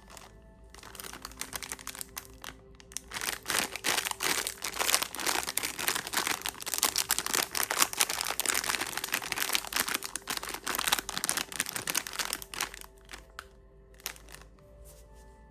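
Plastic candy wrapper crinkling and crackling as it is unwrapped by hand, a dense run of rustles starting about a second in and fading out near the end.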